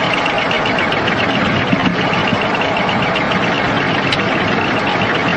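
Airliner cockpit voice recording: a loud, steady rush of cockpit noise, with the aircraft's warning alarm sounding as a high tone that repeats rapidly.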